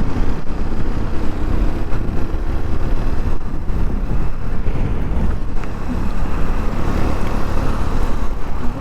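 Keeway Superlight 125 motorcycle being ridden: steady wind rush over the microphone with the engine running underneath.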